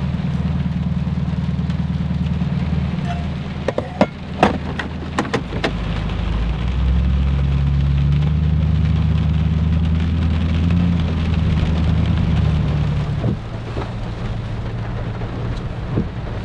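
Heavy rain falling steadily, with a deep low rumble underneath that swells for several seconds in the middle. A few sharp knocks come about four to five seconds in.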